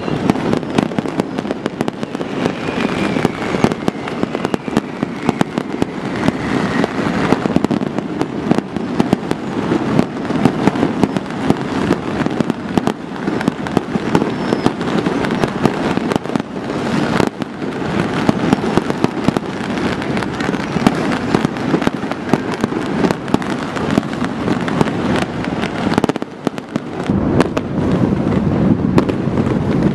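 Dense, continuous barrage of fireworks and firecrackers going off across a city, a constant crackle packed with sharp bangs. It dips briefly near the end, then carries on.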